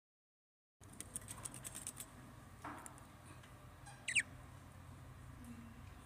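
Young budgerigar giving one short, sharp chirp about four seconds in, after a quick run of light clicks in the first couple of seconds, over a steady low hum.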